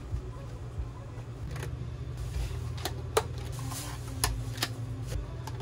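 Clear plastic fruit cups clicking and tapping on a stone countertop as they are picked up and set down, with a handful of sharp clicks in the second half, over a steady low hum.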